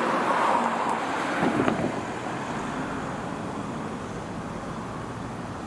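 Road traffic: a car passing, its tyre and engine noise fading over the first two seconds or so, then a steady hiss of traffic noise.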